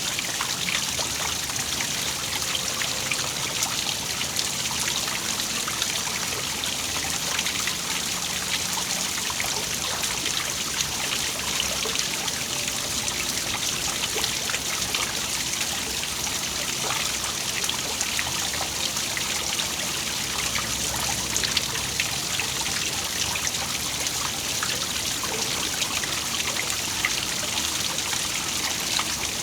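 Small waterfall: water falling and splashing steadily, with a constant trickle and many small splashes.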